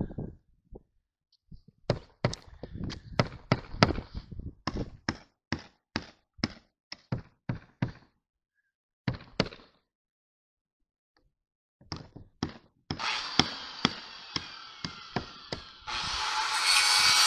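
Hammer strikes on the edge of a mobile home roof: a run of sharp blows about two a second, a pause, then a few more. Music fades in near the end and grows loud.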